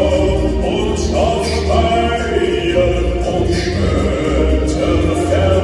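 Live performance of a German folk-song medley: a man's lead vocal with women's backing vocals, accompanied by piano and acoustic guitar.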